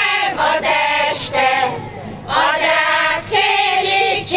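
Women's folk choir singing a Hungarian folk song, with a brief pause for breath about two seconds in.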